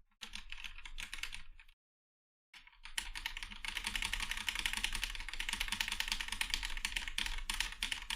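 Typing on a Krux Atax Pro mechanical keyboard with linear Gateron Red switches: rapid key clacks, a brief break about two seconds in, then fast continuous typing.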